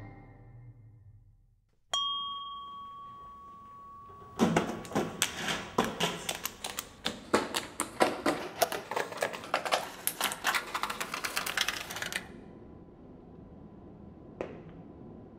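A sharp ping that rings on and fades, then a long run of rapid, irregular sharp clicks and taps lasting about eight seconds, and a single knock near the end.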